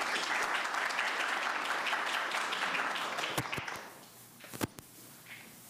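Audience applauding for about four seconds, then dying away, with a few light knocks near the end.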